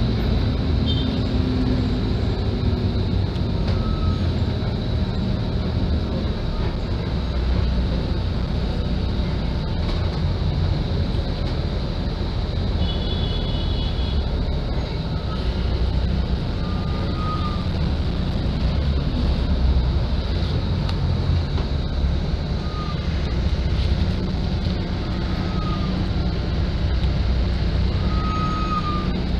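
Cabin noise of a Hino RK8 R260 city bus under way: steady diesel engine and road rumble, with short high squeaks now and then.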